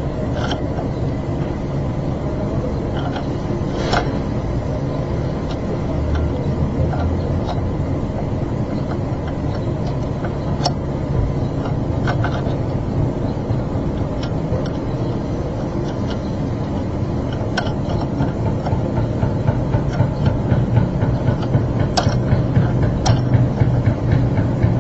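Scattered light metallic clicks of pliers and valve-train parts being handled on an open diesel cylinder head, over a steady low rumble that gets a little louder near the end.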